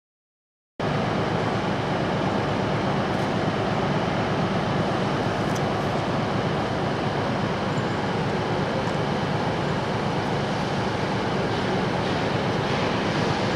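Steady rumbling noise of trains in a large station, with no distinct beats, starting abruptly about a second in.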